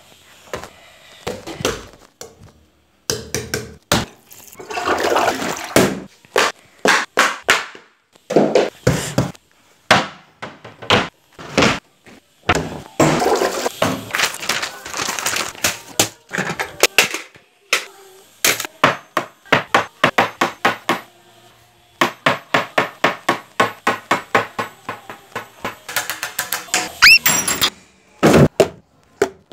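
A string of knocks, taps and clatter from things being handled around a house, with stretches of scraping or rattling, runs of quick, even tapping past the middle, and a short rising squeak near the end.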